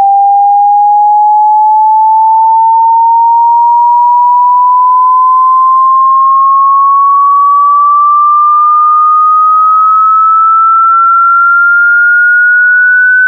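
A pure sine-wave test tone sweeping slowly and steadily upward in pitch, from about 800 to past 1,400 hertz, growing shriller as the frequency rises.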